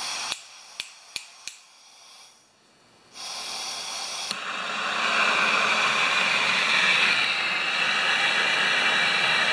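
Handheld gas torch on a small cylinder: a few sharp clicks, then a gas hiss that starts about three seconds in and swells around four to five seconds in to the steady hiss of the lit torch flame.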